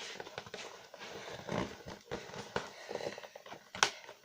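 A parcel being handled and opened by hand: irregular taps, knocks, scrapes and rustles of the packaging.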